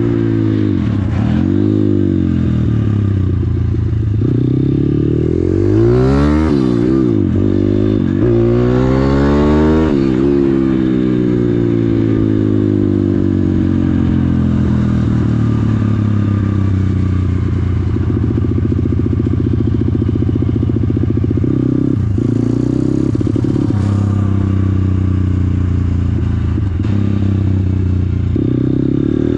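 Single-cylinder four-stroke engine of an MRF 160RC-Z pit bike under way, heard from the rider's seat. The revs climb and drop through several gear changes about six to ten seconds in, then the engine holds a steady cruising pitch with a few brief dips.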